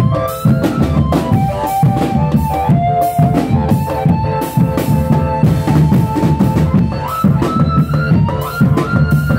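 Drumband playing: marching snare and bass drums beat a steady rhythm under a melody of held notes that step up and down.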